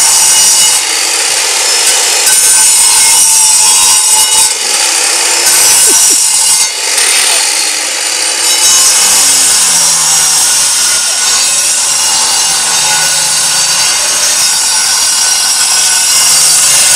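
Angle grinder cutting through concrete on top of a block wall: a continuous harsh grinding with a few short dips in level as the disc bites and eases.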